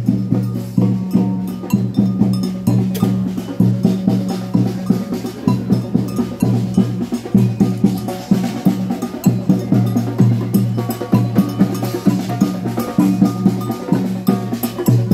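Music with a steady percussion beat: evenly repeating hits over a sustained low bass line.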